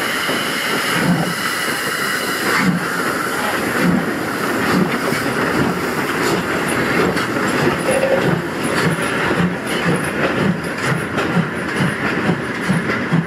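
Steam locomotive 03 2155-4, a DR class 03 Pacific, pulling away: a steady hiss of steam with exhaust chuffs that come faster as it gathers speed, about two a second near the end.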